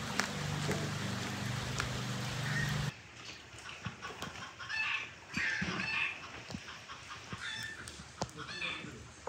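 A steady hum and hiss that cuts off suddenly about three seconds in, followed by hens clucking in short bursts, with small clicks of a knife hulling strawberries.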